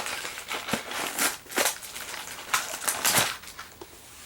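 Toy packaging being handled, crinkling and rustling in irregular bursts that are loudest in the middle and die down near the end.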